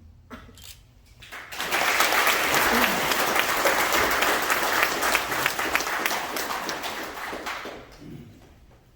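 A roomful of people applauding: clapping swells up about a second and a half in, holds steady, then dies away near the end.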